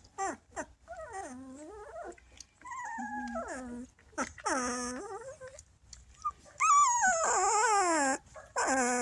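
Bernese Mountain Dog whining and howling in a series of drawn-out, wavering calls with short gaps between them. The loudest call comes near the end, starting high and sliding down.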